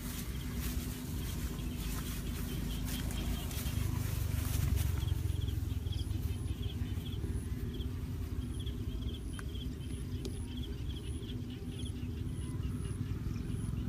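Outdoor ambience of short, high chirps from a calling animal, repeating evenly about twice a second from midway on, over a steady low rumble.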